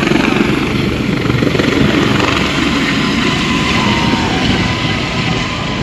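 Helicopter lifting off at full power: loud, steady rotor and turbine noise with a rapid beating of the main rotor blades.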